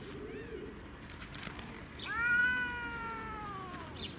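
Domestic cat meowing: a faint short call near the start, then one long drawn-out meow about two seconds in that holds its pitch and falls away at the end.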